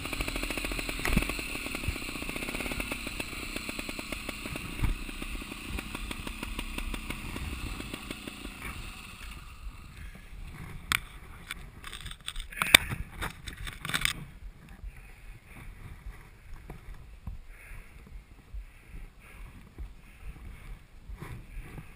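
Trials motorcycle engine idling with a fast, even pulse, then stopping about nine seconds in. After that come a few sharp knocks and clicks.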